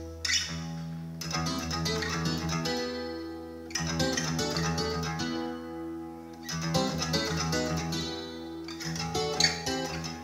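Solo acoustic guitar music played back from a CD through a single-ended vacuum tube amplifier and loudspeakers: chords struck sharply every few seconds and left ringing, with notes picked between them.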